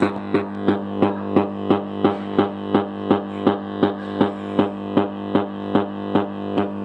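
Home theatre speaker playing music over Bluetooth: a plucked note repeating about three times a second over a steady low drone. This is the faulty sound of a unit with a sound problem that the owner sets out to fix by fitting a 2030 amplifier IC.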